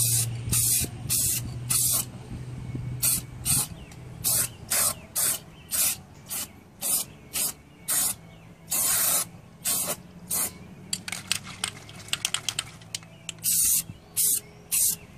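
Aerosol can of truck bed undercoating spraying in many short hissing bursts, with one longer burst about nine seconds in and a quick run of short puffs a couple of seconds later.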